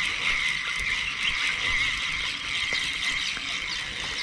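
A steady, high-pitched buzzing chorus of calling creatures, an even drone that never breaks, with a few faint short chirps over it.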